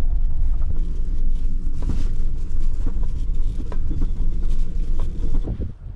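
Car cabin noise while driving across rough grass paddocks: a steady low engine and tyre rumble with scattered knocks and rattles from the bumps. It drops away near the end.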